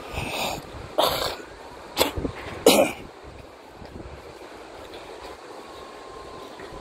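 A person coughing four times in quick succession over about three seconds, over a steady background hiss.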